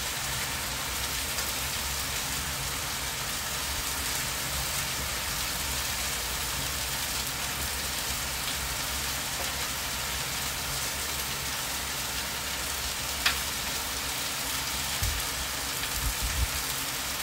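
Chicken, bacon and mushrooms sizzling steadily on a hot Blackstone flat-top griddle, with a sharp tick partway through and a few low thumps near the end.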